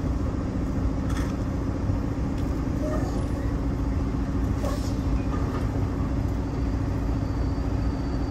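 Semi truck's diesel engine running steadily at low revs, a constant low hum.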